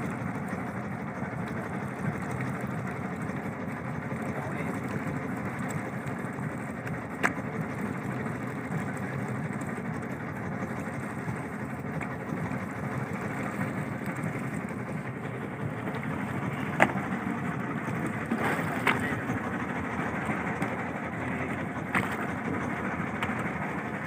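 Steady rumble of a small wooden fishing boat at sea, with a few sharp knocks on the boat in the second half as a yellowfin tuna is hauled aboard.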